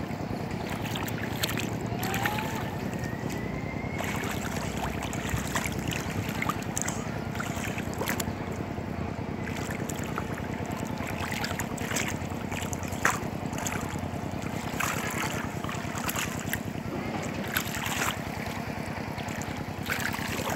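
Hands splashing and scraping in shallow muddy water, many small irregular splashes over a steady rush of wind on the microphone.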